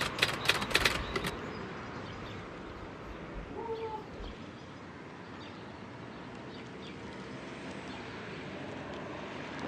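Background music with a beat cuts off about a second in, leaving steady outdoor background noise with a few faint high chirps.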